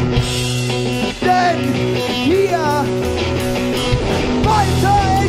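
Live post-hardcore rock band playing: held guitar chords with high sliding notes over them. The heavy low end of bass and drums thins out and comes back in full about four seconds in.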